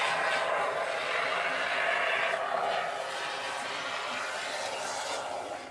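Can of expanding spray foam hissing steadily as foam is dispensed into the gap between the new window and its frame, cutting off suddenly near the end as the trigger is released.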